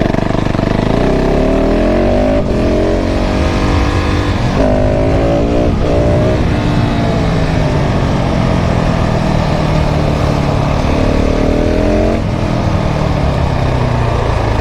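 KTM 690 SMC R's single-cylinder engine accelerating hard, its pitch rising and breaking off at two gear changes in the first five seconds. It then falls away steadily as the bike slows, with a short rise again near the end.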